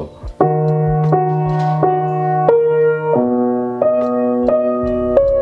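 Piano being played: a slow sequence of chords over held bass notes, the chord changing about every three quarters of a second, beginning about half a second in.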